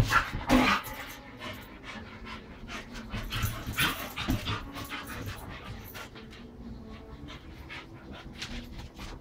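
Two Australian Shepherds panting after rough play, with scuffling bursts near the start and about four seconds in, and quick clicks of claws on the tile floor as they move about.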